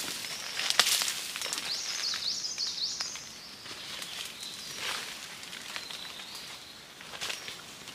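Footsteps crunching and crackling through dry leaf litter and bamboo undergrowth, the sharpest snap about a second in and the steps growing fainter as the walker moves away. A bird calls a short run of high rising notes about two seconds in.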